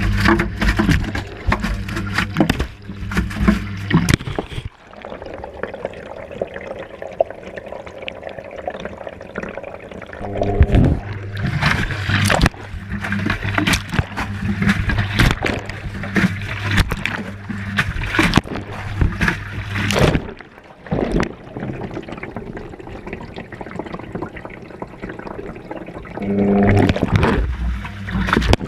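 Whirlpool washing machine heard from inside its drum during a wash. The motor hum starts and stops as the drum turns and pauses: it drops out about four seconds in, returns around ten seconds, drops again near twenty and comes back near the end. Water sloshes and the tumbling load knocks throughout.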